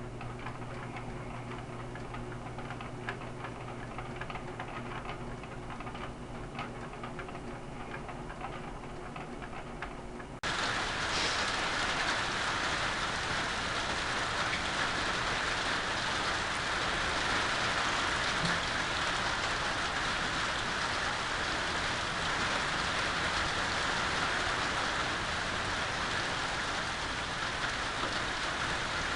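Rain falling steadily, at first with a low steady hum beneath it; about ten seconds in the sound cuts abruptly to louder, heavier rain.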